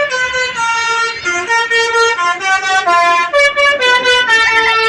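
Bus telolet basuri horn playing a quick tune: a run of distinct pitched notes, changing two or three times a second, with no break between them.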